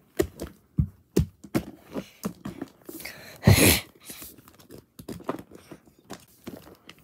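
Plastic toy animal figurines knocked and clacked together and bumped on carpet in a mock fight: a quick, irregular run of clicks and knocks, with a louder, longer noisy burst about three and a half seconds in.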